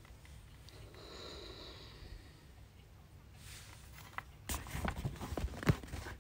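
Hands handling an open paperback book lying on a whiteboard: the pages rustle and there are quick light knocks and taps as the book is pressed flat, starting a little past halfway and loudest near the end.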